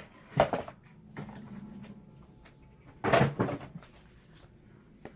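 Keyboard packaging being handled: two loud rustling, scraping bursts, a short one about half a second in and a longer one around three seconds in.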